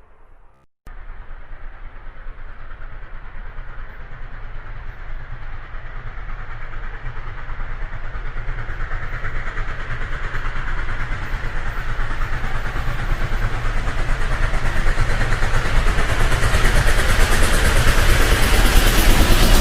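Train running on the rails, its rumble and rattle starting abruptly about a second in and growing steadily louder.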